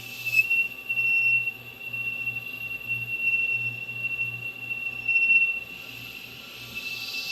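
CNC lathe cutting metal with a steady high-pitched squeal that stops about six seconds in, over a low pulsing machine hum. A hiss rises near the end.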